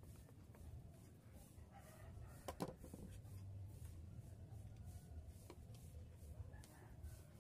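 Near silence with a low steady hum; about two and a half seconds in, a short clatter of a metal hand tool set down on a wooden workbench, and a single faint click a few seconds later.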